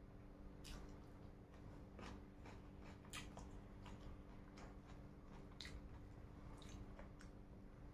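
Faint chewing and eating sounds: soft, irregular clicks of mouth and food, about a dozen spread over several seconds, over a low steady hum.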